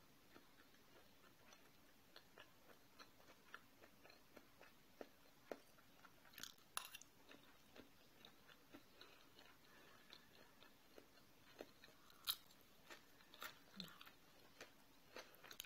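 Faint eating sounds: chewing, with many small soft clicks and a few sharper ticks of cutlery against the plate.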